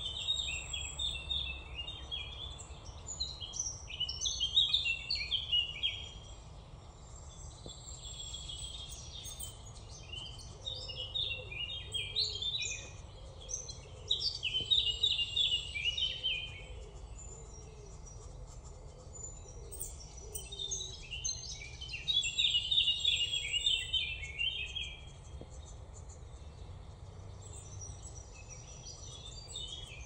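Green woodpecker nestlings begging from the nest hole while being fed: dense, high chattering in bouts a few seconds long, broken by quieter pauses.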